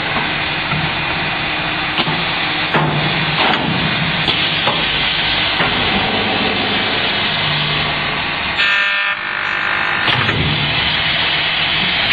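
Parker CCA 120 corner cleaning machine for PVC window frames running: a steady loud mechanical noise with a low hum that comes and goes, sharp clicks every second or so, and a short buzz about nine seconds in.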